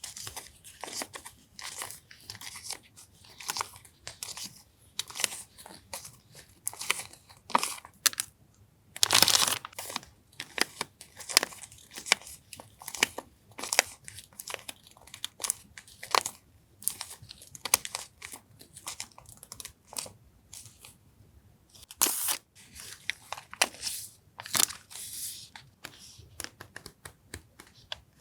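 Paper stationery and its packaging being handled, with many short, irregular crinkles and rustles; the loudest come about nine seconds in and again near twenty-two seconds.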